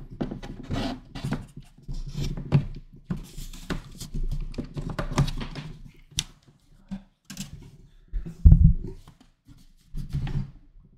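Handling noise of a power cable being plugged in behind a desk: a busy run of rustles, small clicks and knocks, with one heavier thump about eight and a half seconds in.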